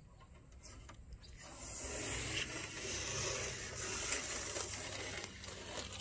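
Blue painter's tape being peeled off and masking paper crinkling as the masking comes off a freshly spray-painted grille: a scratchy rustling that starts about a second and a half in.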